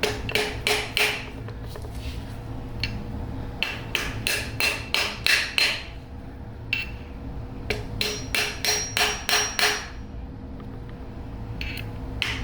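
Hammer tapping on a socket to drive a tapered roller headset bearing and spacer down onto a motorbike fork's steering stem. The taps come in quick runs of about four a second with short pauses between, each strike with a light metallic ring.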